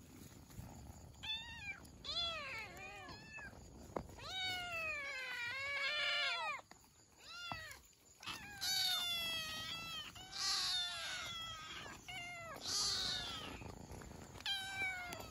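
Kittens mewing over and over as they jostle to nurse: a string of high, thin cries, some short and quick, a few long and wavering.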